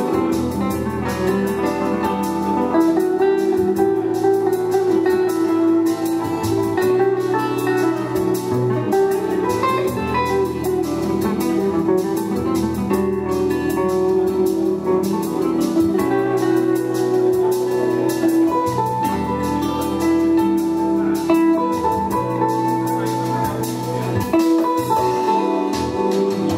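Live chill-out jazz played on electric guitar and keyboards: the guitar picks notes over sustained keyboard tones, with low bass notes that change every few seconds.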